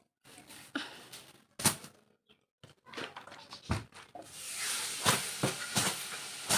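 Straw hand broom sweeping over a bedsheet: separate brushing swishes at first, then quicker, continuous sweeping from about four seconds in.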